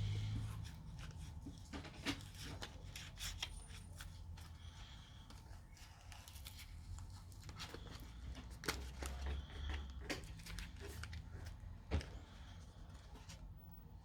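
Scattered small clicks and scrapes of a plastic card and tools prying the glued glass back off a Samsung Galaxy S8, with one sharper click near the end, over a steady low hum.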